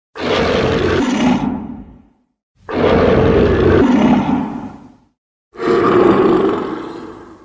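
Three Showa-style kaiju monster roar sound effects in a row, each about two seconds long, starting loud and trailing off, with short silent gaps between.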